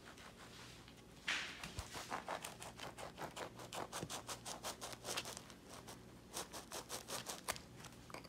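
Kitchen knife sawing lengthwise through a crusty French baguette: a fast run of short, crackly rasps as the blade saws back and forth through the crust, several strokes a second. It starts about a second in and stops shortly before the end.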